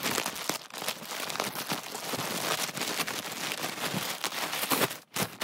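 Parcel packaging being opened by hand: a steady crackle of crinkling and rustling, with a short break near the end.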